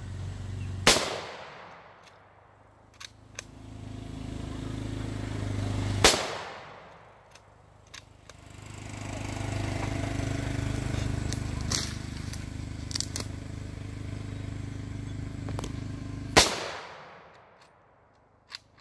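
.308 rifle firing three shots: about a second in, about six seconds in, and near the end. Each shot trails off in an echo. Softer clicks sound between the shots.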